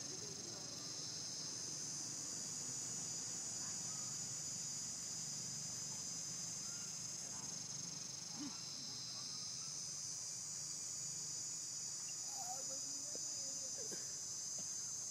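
Steady high-pitched chorus of insects droning without a break.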